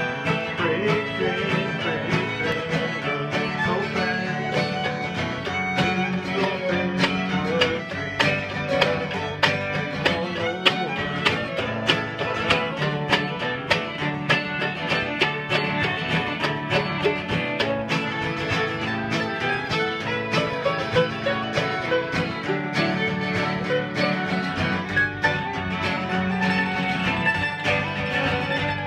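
Acoustic bluegrass-style string-band playing: a fiddle bowing the melody over a steadily strummed acoustic guitar, keeping an even rhythm.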